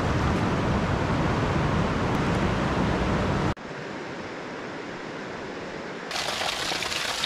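Rushing river water, a loud steady wash that cuts off abruptly about three and a half seconds in. A quieter steady hiss follows, which grows brighter near the end.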